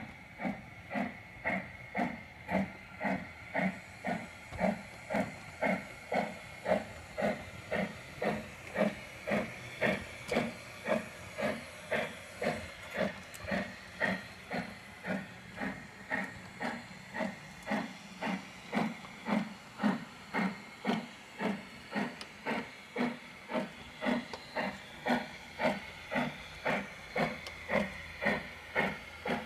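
Sound module of an LGB garden-scale model of the Saxon I K steam locomotive playing a steady, even steam chuff, about two chuffs a second.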